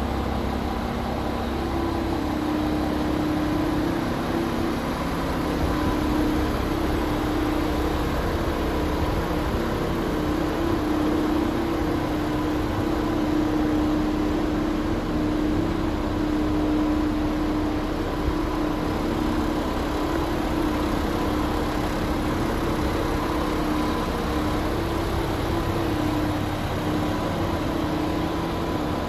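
A DAF XF106's Paccar 510 hp Euro 6 straight-six diesel engine idling steadily, with an even hum and no change in revs.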